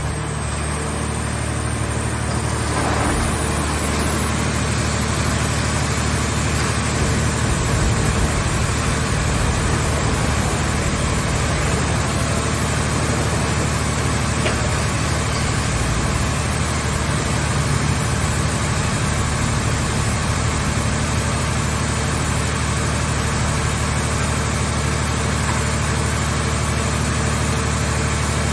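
Hydraulic scrap-car baler's power unit running steadily: a constant low engine-like hum with a hiss over it. It grows a little louder about three seconds in.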